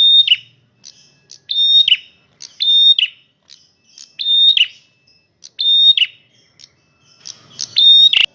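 Male prenjak merah singing loudly: a string of short calls, about one every second and a half. Each call is a clear, held high note that drops sharply at its end. There is a single sharp click near the end.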